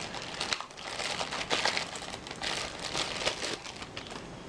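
Clear plastic bag crinkling in the hands as a cable is worked out of it, in irregular rustles that die down near the end.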